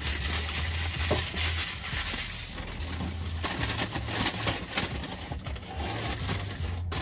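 Paper taco wrapper and takeout bag being crumpled and rustled, with sharp crinkling crackles.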